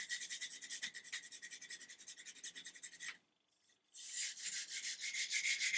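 Scotch-Brite abrasive pad scrubbed rapidly back and forth on a wooden rifle stock, rubbing off stripper-softened varnish. It stops for almost a second a little past the middle, then resumes, louder toward the end.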